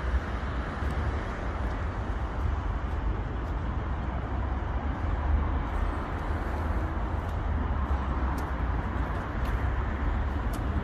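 Steady road-traffic noise with a deep, even rumble underneath.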